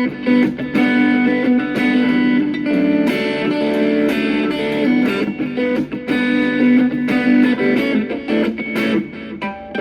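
Guitar-led instrumental music: sustained and plucked guitar notes over a steady beat of percussive hits.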